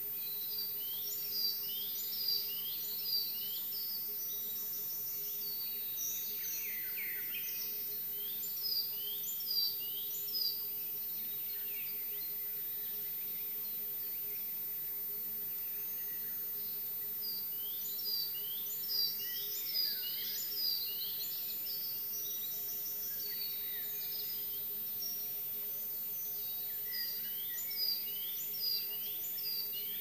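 Dawn chorus of several songbirds: dense, overlapping short chirps, trills and quick downward-sweeping notes. A louder note stands out in groups of three about a second apart, several times. A steady low hum runs underneath.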